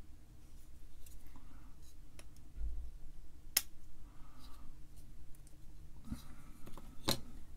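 Light clicks and ticks from handling a small printed circuit board while fitting a through-hole resistor, its wire leads pushed through the holes and bent over. The sharpest click comes about three and a half seconds in, with two more near the end.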